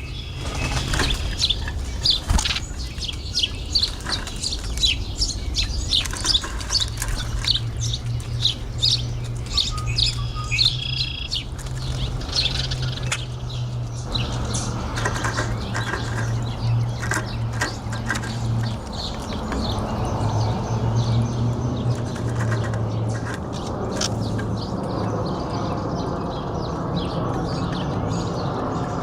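Wild birds chirping with many short high calls, strongest in the first half, over scattered sharp taps and clicks and a low steady hum.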